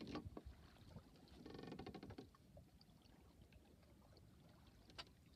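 Faint water sloshing against a small sailboat's hull under sail, with scattered light clicks and knocks. A brief rattling buzz comes about a second and a half in, and a sharper click near the end.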